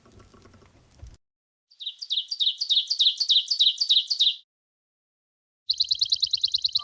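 A bird trilling in two bursts of rapid, repeated high chirps. The first runs about two and a half seconds at a few notes a second. The second, faster run starts near the end.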